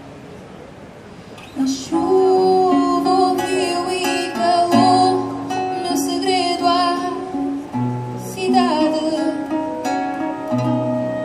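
Live acoustic music: a woman singing with vibrato over a nylon-string classical guitar and a clarinet. A quieter passage of held notes gives way to the full, louder ensemble about two seconds in.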